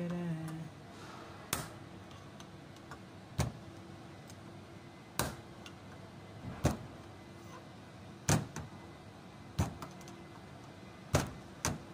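Short, sharp metal clicks of a screwdriver working at the front clutch end of a car A/C compressor, about eight in all, spaced a second or two apart.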